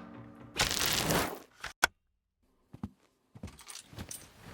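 Sharp clicks and knocks from handling a Dyson V10 cordless vacuum cleaner, after a short burst of noise about half a second in.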